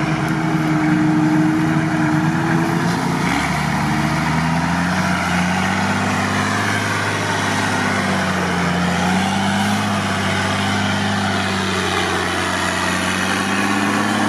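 Mercedes-Benz Unimog truck's engine pulling through knee-deep water and mud, its revs rising and falling, with water rushing and splashing around the tyres.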